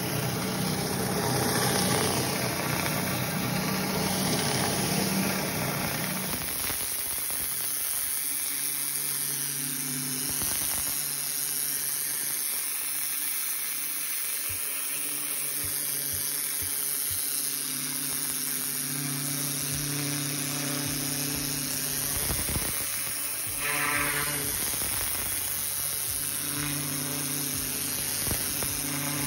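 Pressure washer at work with an engine hum underneath: first a surface cleaner running over wet tile, then, after a change several seconds in, a wand nozzle spraying a high-pressure jet onto a concrete paver, heard as a steady hiss of spray.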